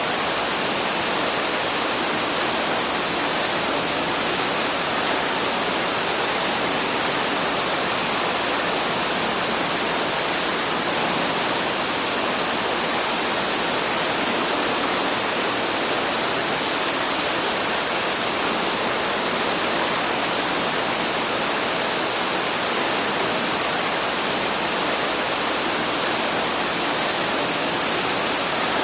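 Waterfall's steady rush of falling water: an even, unbroken hiss, bright and heavier in the upper range than in the bass.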